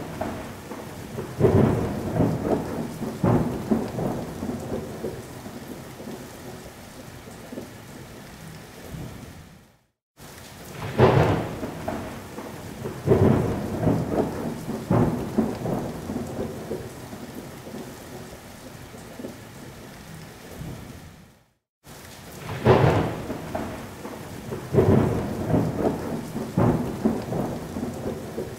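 Thunderstorm recording: steady rain with several loud thunder cracks and rumbles. The same stretch of about eleven seconds repeats, with a brief cut to silence between repeats, as a looped sound effect.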